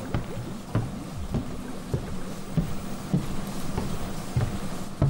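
A string of dull thumps, about one every half second, over a low steady hum.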